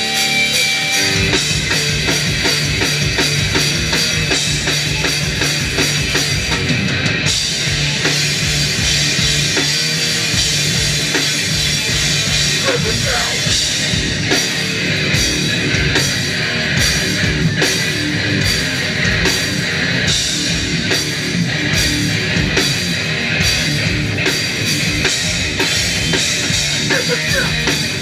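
Hardcore punk band playing live at full volume, with distorted electric guitars, bass and drum kit. A held chord rings for the first second before the full band comes in. Cymbals fill in from about seven seconds, and the drums keep a steady pounding beat through the second half.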